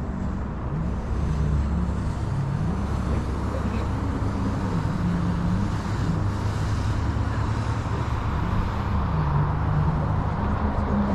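Steady outdoor street background: a continuous low rumble of road traffic, with faint wavering tones mixed in.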